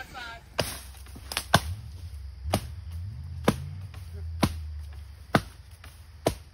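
Firewood being chopped: seven sharp strikes about a second apart, with a low steady hum underneath.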